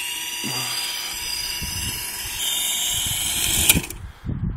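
Electric motor and rotor of a QS8006 large RC helicopter whining as it spools up, the whine rising slightly in pitch and growing louder. About three and a half seconds in comes a sharp clack as the helicopter tips onto its side and the blades strike the ground, and the whine cuts off suddenly.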